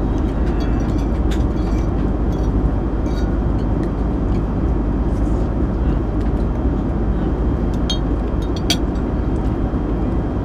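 Steady cabin roar of an airliner in flight, with a few light clinks of metal cutlery against a plate.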